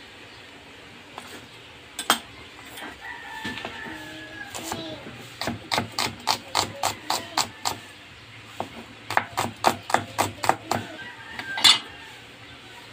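Kitchen knife chopping green mango on a wooden cutting board: two runs of quick knocks, about four a second, with single louder knocks about two seconds in and near the end.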